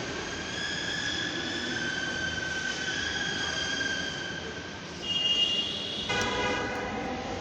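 Metro train running, with steady high whining tones over the running noise. About five seconds in, a louder high tone starts. A second later it is joined by a pitched sound rich in overtones.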